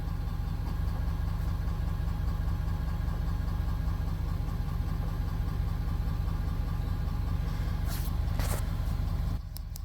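Truck engine idling steadily, with two short clicks near the end; the engine hum drops away just before the end.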